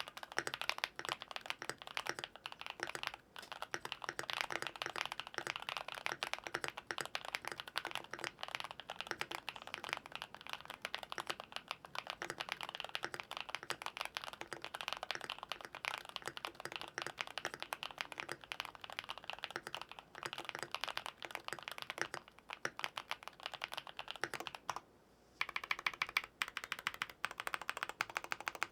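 Typing sound test on a LUMINKEY98 aluminium-cased mechanical keyboard with LUMINKEY linear switches and PBT keycaps: rapid, continuous keystrokes. The typing stops briefly about 25 seconds in, then resumes.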